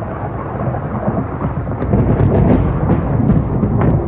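Loud thunderstorm: rumbling thunder over steady rain, with sharp cracks about two seconds in and again near the end.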